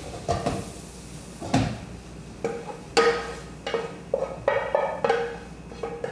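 Frying pan knocked and scraped against the rim of a stainless steel pot as sautéed beef and onions are emptied into it: a run of irregular metallic knocks, each ringing briefly.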